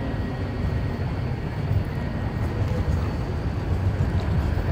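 Tram rolling past on street tracks: a steady low rumble with city traffic noise behind it.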